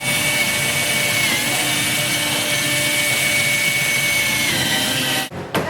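A power tool running steadily with a high whine over a hiss, dipping slightly in pitch twice, then cutting off abruptly about five seconds in, followed by a few sharp clicks.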